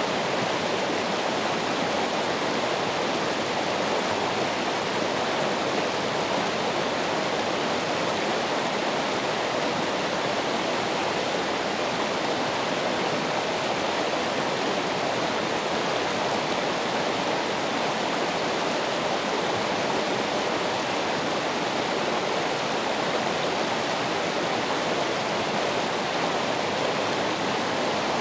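Running water flowing steadily and without a break, an even rushing with no splashes or drops standing out.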